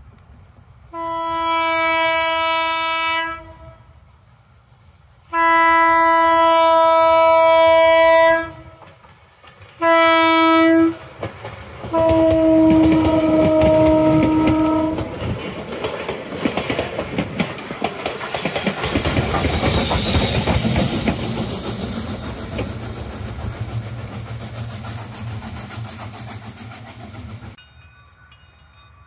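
Southern 401's steam whistle sounds four blasts, long, long, short, long: the grade-crossing signal. Then the passenger train rolls past, its wheels clacking over the rail joints.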